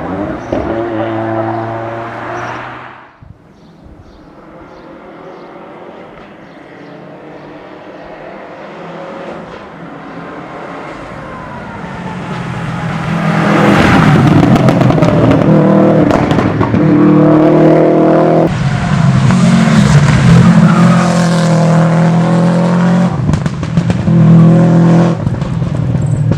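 Rally car engines on a special stage: one car's engine fades away in the first three seconds, then another is heard approaching, growing steadily louder until it arrives at full throttle about halfway through, revving high with several gear changes.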